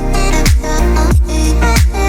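Upbeat electronic background music: a steady beat with a deep kick drum about every two-thirds of a second under bright synth chords.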